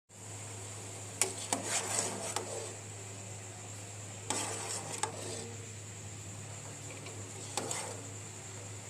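Clinks and scrapes of kitchen utensils against dishes in three short bouts, about a second in, around four seconds in and near the end, over a steady low hum and hiss.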